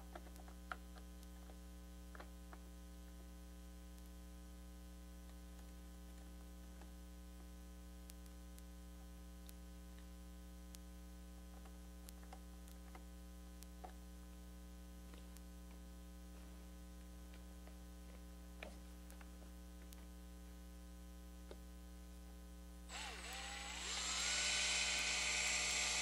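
A steady low electrical hum with a few faint clicks of handling. Near the end, a cordless drill spins up and runs, drilling a pilot hole into the door jamb for the strike plate screws.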